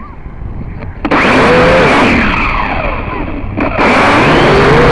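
Akaso X5C toy quadcopter's small brushed motors and propellers whirring, heard through its own onboard microphone. The noise jumps up sharply about a second in as the drone climbs off the grass, dips briefly, then jumps up again near the end.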